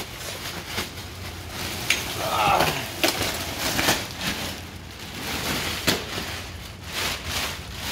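Black plastic garbage bag rustling and crinkling as it is grabbed and hauled up, with a few sharp clicks and knocks.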